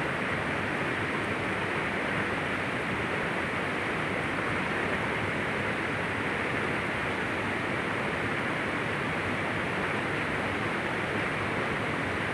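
Steady rush of a shallow river flowing over rocks.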